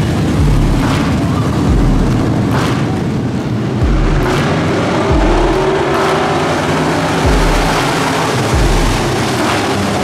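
Dirt-track pro stock race cars running as a pack, engines revving up and down through the turn. A deep low boom recurs about once a second.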